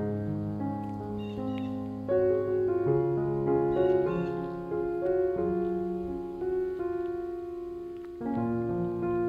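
Background music: slow, gentle piano playing held chords that change every one to three seconds.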